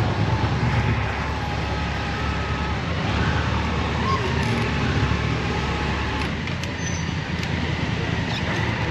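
Motorcycle on the road, its engine and road noise running steadily.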